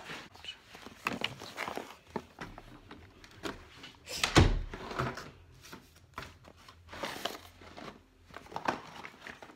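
Scattered clicks and knocks of someone moving about and handling things in a room, with one louder thump about four seconds in.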